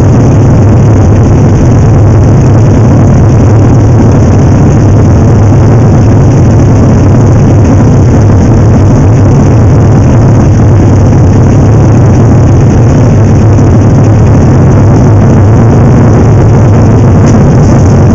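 Legends car's four-cylinder Yamaha motorcycle engine idling, loud and steady throughout, picked up close by the car's own onboard camera.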